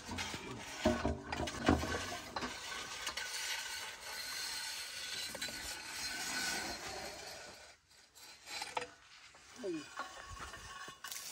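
Scraping and grinding of a hand-turned borewell drill pipe worked round by its T-handle in the ground, with a few metallic knocks and clinks.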